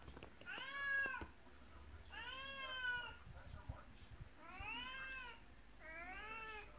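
Domestic cat meowing four times, each meow rising and then falling in pitch, with short gaps between them.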